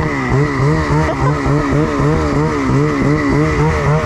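Turbocharged 850 two-stroke snowmobile engine running at low revs, its pitch rising and falling about three times a second, with a faint steady high whine over it.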